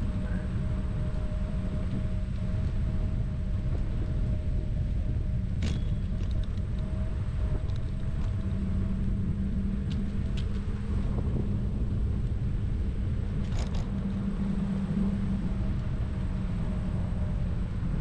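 Steady low engine rumble with a constant hum, as heard riding in a running vehicle, with a few brief clicks.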